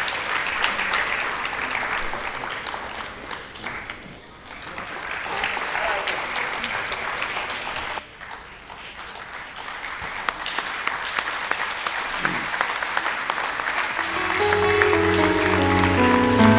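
Audience applauding, a dense patter of hand claps that dips briefly twice. Music with sustained notes comes in near the end and grows louder.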